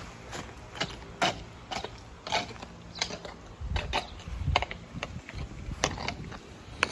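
Heavy draft horse's hooves striking a gravel driveway, a string of sharp crunching steps about two a second as it is led along.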